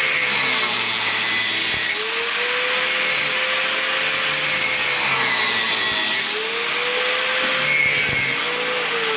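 Electric power tool cutting through the steel of an old saw blade, its motor whine dropping in pitch as it bites and recovering between cuts, three times, over a steady grinding hiss.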